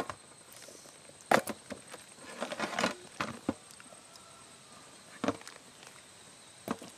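Plastic lidded food boxes of frozen ice cream being handled and their lids pried open: a sharp click at the start, then scattered clicks and knocks, with a short scraping rustle between about two and three seconds in.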